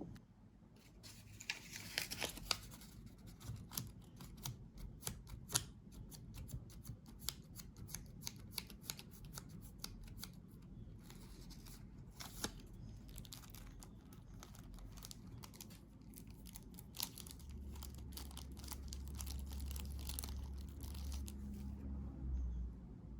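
Keyboard packaging being handled and torn open: an irregular run of crackles, clicks and tearing. A low rumble comes in for the last few seconds.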